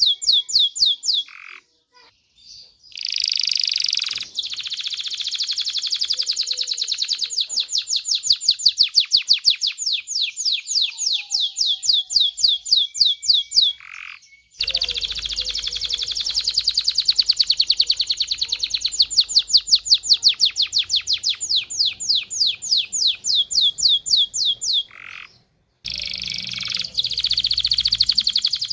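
Domestic canary singing long, fast trills of rapidly repeated high notes, in phrases broken by brief pauses.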